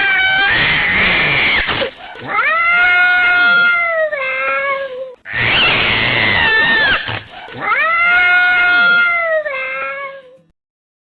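Domestic cat meowing: two long, drawn-out meows, each sliding down in pitch at the end, each preceded by a harsher, rougher stretch of call. The sound stops shortly before the end.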